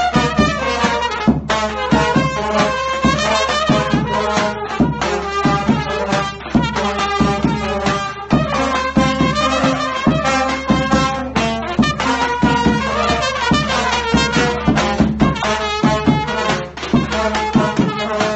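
Balkan trubači brass band playing live: trumpets and lower brass carry the tune over a steady beat on a large bass drum.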